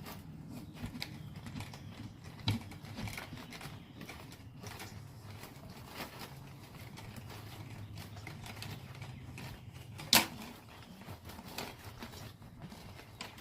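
Scattered light clicks and knocks over a low steady hum, with a louder knock about two and a half seconds in and a sharp click about ten seconds in.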